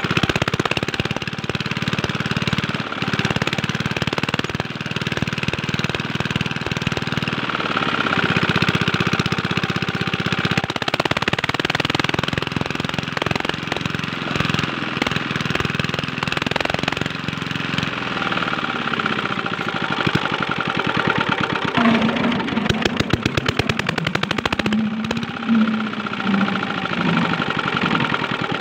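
Small single-cylinder Chinese diesel engine running steadily, driving an irrigation water pump, with a fast, even knocking beat and water splashing from the pump outlet. Its speed wavers a little in the last third.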